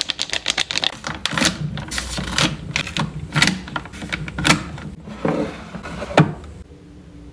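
Crinkling and clicking of plastic eye-patch packets being handled and set into a clear acrylic organiser drawer. The drawer is pushed shut with a sharp clack about six seconds in.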